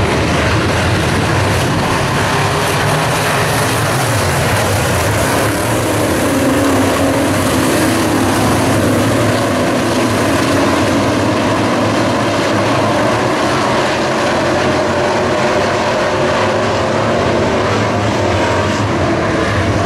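Midwest modified dirt-track race cars running in a pack, several engines going together in a loud, continuous din whose pitch wavers as the cars circulate.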